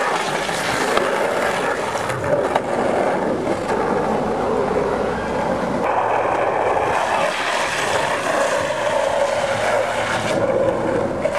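Longboard wheels rolling and sliding across pavement: a continuous rough, noisy rumble that changes in tone partway through.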